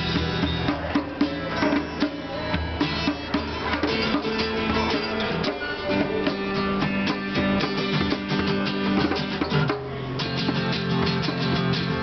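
Acoustic guitar strummed in a steady rhythm, with a hand drum beating along. The playing dips briefly about ten seconds in, then the strumming picks up again on a new chord.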